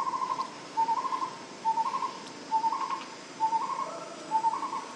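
A bird calling over and over, about once a second: each call is a short note followed by a slightly higher quick trill.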